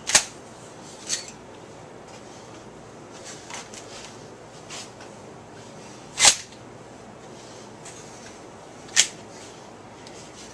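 Hard clacks and knocks of a pump shotgun and its polymer fore-end being handled: four sharp ones, just after the start, about a second in, about six seconds in and about nine seconds in, with a few fainter taps between.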